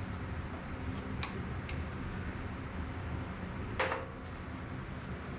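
An insect chirps steadily, a short high chirp repeated a few times a second, over a faint background hum. A light click comes about a second in and a sharper knock near four seconds, from work on the tractor.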